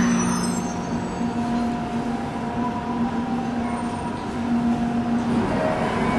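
Yokohama Municipal Subway Blue Line train standing at the platform, its equipment humming steadily with a low tone and a fainter higher tone.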